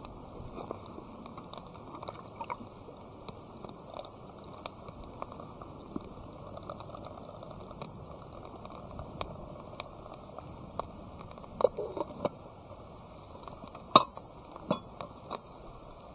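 Steady rush of a river, with scattered small crackles and clicks and a few sharper knocks about twelve and fourteen seconds in.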